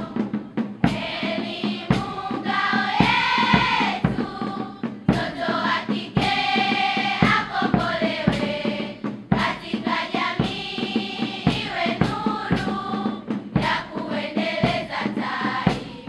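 A large group of schoolgirls singing a Swahili patriotic song together in unison, with sharp beats running through the singing at a steady pace.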